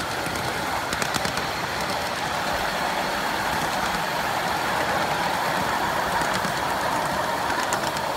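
Ride-on miniature railway train rolling along the track, heard from aboard a riding car: a steady rumble and rattle of wheels on rail, with a few light clicks about a second in and again near the end.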